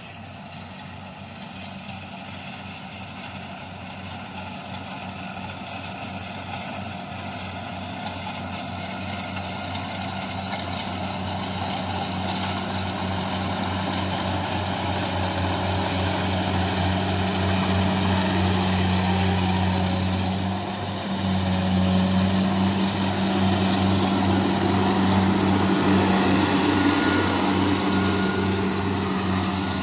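A Kubota combine harvester runs steadily while cutting rice, its engine hum joined by the whir of the cutter and threshing machinery. It grows steadily louder as the machine draws near, with a brief dip about two-thirds of the way through.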